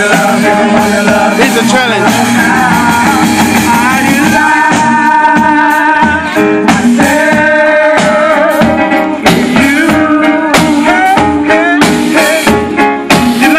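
Live worship band playing, with vocalists singing over keyboard and drums.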